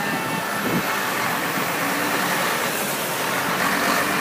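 Articulated lorry and a van driving past at close range, engine and tyre noise growing steadily louder as the lorry approaches.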